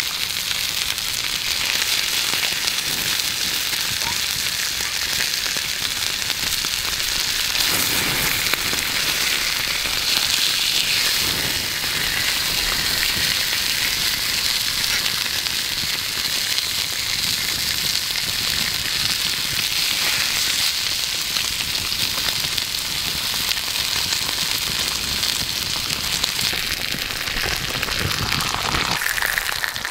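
Thick ribeye steak sizzling steadily in a frying pan over a campfire, with the fire crackling.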